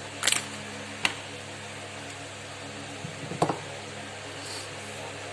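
Three short clicks and knocks of small parts or a tester being handled on a repair bench, over a steady low electrical hum.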